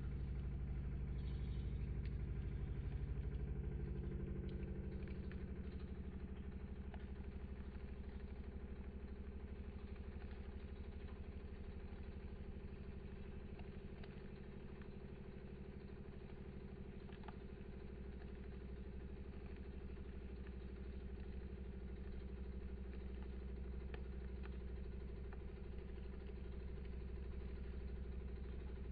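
Lelit Mara X espresso machine's vibratory pump humming steadily under pressure while it pulls a shot through a bottomless portafilter, with a few faint clicks over the hum.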